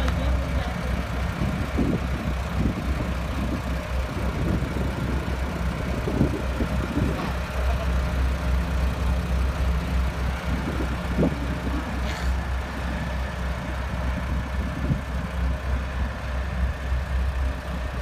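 Heavy diesel engine idling with a steady low hum.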